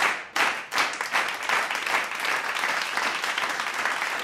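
Applause that settles into a steady clatter. In the first second it is cut by a few sharp strokes, about two and a half a second.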